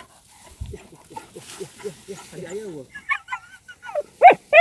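A dog at the mouth of a civet's burrow it is digging out, making soft low whines, then a run of high yips about three seconds in and two loud, sharp barks near the end: a hunting dog baying at quarry gone to ground.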